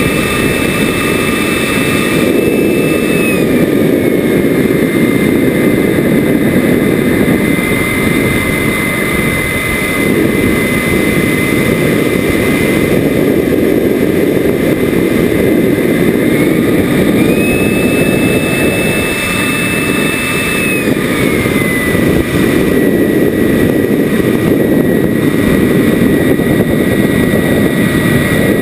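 Onboard sound of a radio-controlled model Rafale jet in flight: a heavy rush of wind over the microphone, with the thin high whine of its motor. The whine drops in pitch a few seconds in, rises again a little past halfway and drops back a few seconds later as the power changes.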